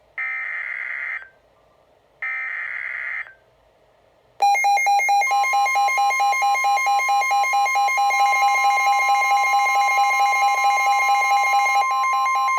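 Emergency Alert System warning on NOAA Weather Radio: three short bursts of the digital SAME header, each about a second long with a second's gap, then a loud, rapidly pulsing electronic alarm starts about four seconds in. About a second later the steady weather radio warning alarm tone joins it, marking the start of a severe thunderstorm warning.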